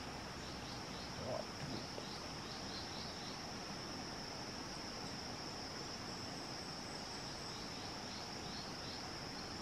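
Steady high-pitched drone of an insect chorus in tropical forest, with runs of short faint chirps repeating beneath it.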